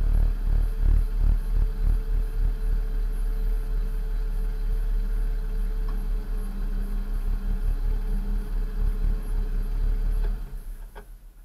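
Second-generation Toyota Tacoma prerunner's engine idling steadily while parked, then switched off about ten seconds in, running down to silence within a second or two.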